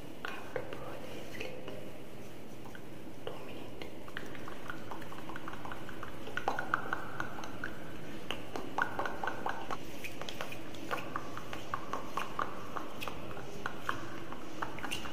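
ASMR mouth sounds made right at a microphone: irregular wet clicks and lip smacks, growing denser in the second half.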